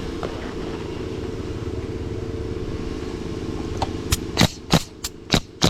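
A steady low rumble of wind on the microphone. From about four seconds in, a quick run of sharp knocks, about three a second, as nails are driven through shingles into the roof deck.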